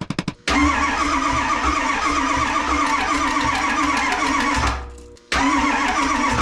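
Ford 7.3 Powerstroke diesel V8 being cranked by its starter without firing: crank-no-start. It cranks steadily for about four seconds, stops for half a second, then cranks again. A rapid ticking is heard in the first half-second.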